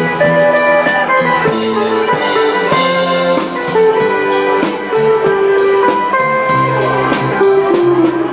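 Live band playing an instrumental dance tune on electronic keyboard, guitar and drum kit, the keyboard carrying a melody of held notes over a steady drum beat.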